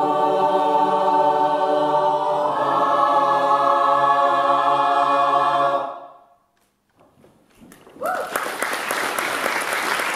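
Mixed choir singing a cappella, holding a closing chord that moves to a new chord about two and a half seconds in and cuts off together about six seconds in, ending the piece. After a second or two of near silence, the audience breaks into applause.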